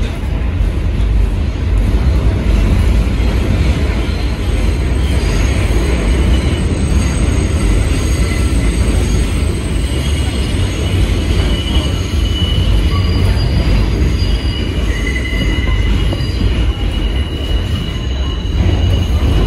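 An R46 New York City subway car running through a tunnel, heard from inside the car: a loud, steady low rumble. From about five seconds in, thin high wheel squeal comes and goes over it.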